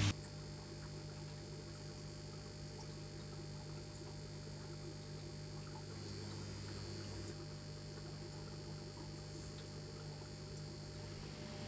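Steady low electrical hum with a faint high-pitched whine.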